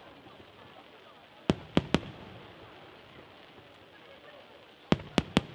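Aerial firework shells bursting in volleys of three. Three sharp bangs come in quick succession about a second and a half in, and three more near the end.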